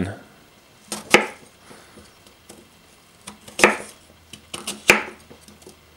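Chef's knife chopping slices off a raw potato onto a bamboo cutting board: a few sharp, irregular strikes, the loudest about a second in, near the middle and near the end, with lighter clicks between.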